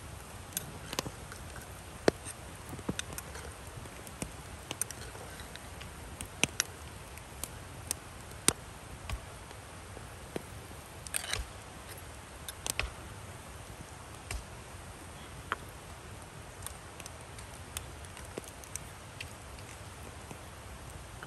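Metal spoon clinking against small clay dizi pots as stew is stirred and ladled, with clay lids being lifted and set back on. Scattered sharp clicks and taps at irregular intervals over a faint steady hiss.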